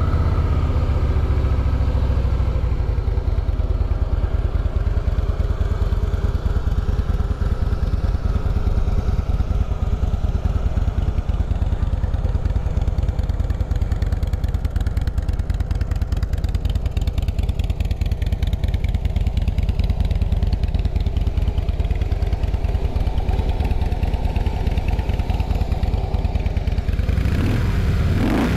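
A 2016 Harley-Davidson Fat Boy's 103-cubic-inch fuel-injected V-twin idling steadily through its stock chrome dual exhaust, with a short rev that rises and falls near the end.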